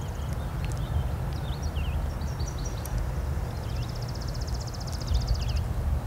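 Songbirds singing in the background: short high whistled notes throughout and a rapid, even trill from a little past the middle to near the end. A steady low rumble lies under it all.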